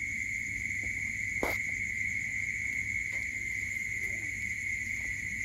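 Steady, unbroken high-pitched insect trilling, like a cricket chorus, with a single sharp click about one and a half seconds in.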